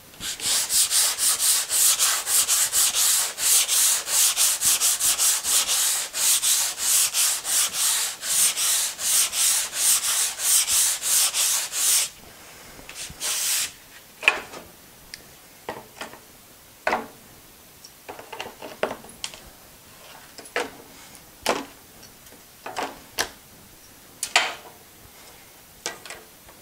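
Hand sanding block rubbed quickly back and forth over the scarf bevel of thin okoume plywood, about three or four strokes a second, which stops suddenly about twelve seconds in. The bevel is being taken down toward its tape line as each laminate line forms. After that come one short rub and a scattering of light taps and knocks as tools and strips are handled on the saw table.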